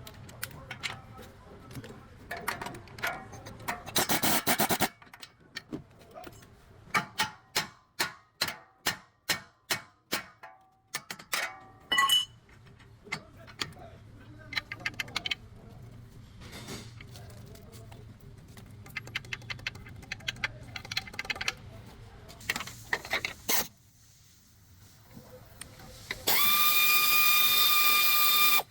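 Hand tools working on a vehicle's front suspension: scattered clicks and clanks, then a run of about a dozen evenly spaced metal strikes. Near the end a power tool runs steadily for about two seconds with a whine.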